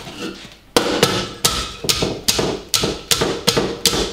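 A steady run of sharp knocks, about two and a half a second, starting about a second in.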